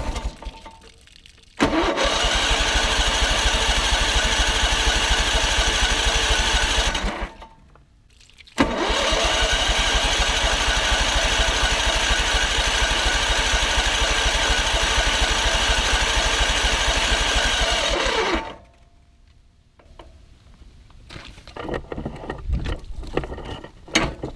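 The electric starter cranks the pressure washer's engine in two long tries, about five and ten seconds each, and each one stops suddenly. This is an attempt to get it running after cleaning the spark plugs. Some quieter clattering follows near the end.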